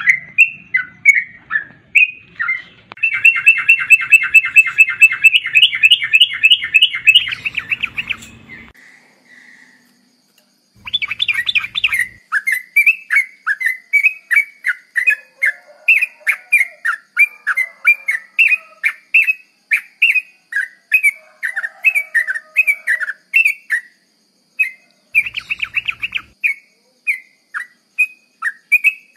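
Yellow-vented bulbul (trucukan) song: a run of short, bubbly whistled notes. A loud, rapid chattering trill starts about three seconds in and lasts some five seconds, then comes a short pause. After that the notes resume, broken by two more brief fast trills.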